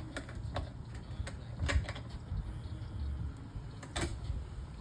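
Scattered light clicks and knocks of parts and tools being handled, a few irregular taps with the loudest near the end, over a low rumble.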